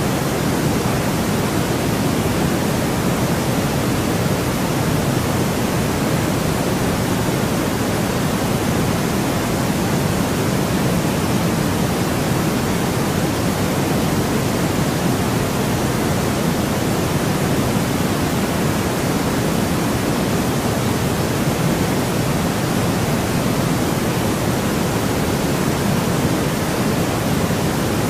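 Steady generated white noise, an even, unchanging hiss with more weight in the lower middle than in the treble.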